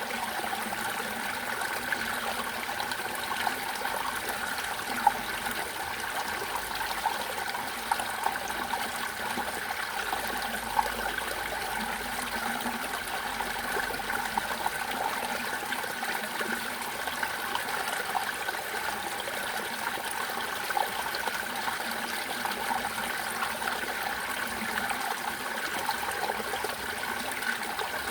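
Clear water flowing steadily, with a constant trickling rush and a few brief louder splashes.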